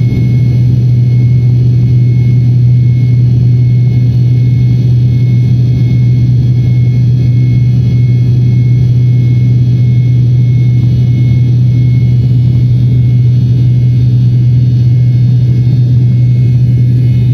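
Airliner engines running steadily during the climb after takeoff, heard inside the cabin: a loud, deep, even drone with a thin high whine over it.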